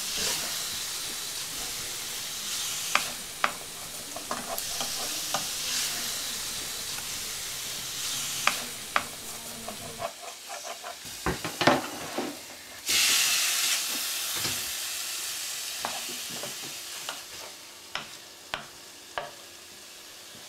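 Chicken and garlic sizzling in oil in a frying pan as they are stirred, with sharp clicks and scrapes of the utensil against the pan. About two-thirds through, the sizzle flares up loudly for about a second, then gradually dies down.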